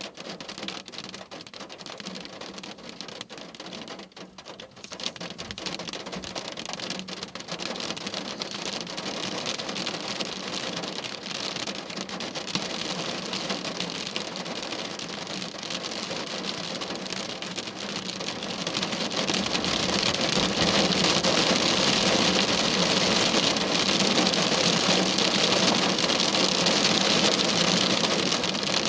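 Heavy rain falling in a thunderstorm, a dense steady hiss that grows louder a few seconds in and again about two-thirds of the way through, ending as a steady downpour.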